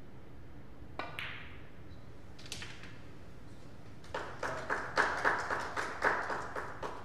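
A cue tip striking the cue ball with a sharp click on a billiards table, and the cue ball clicking into an object ball about a second and a half later. Then a short burst of clapping, about four claps a second for nearly three seconds.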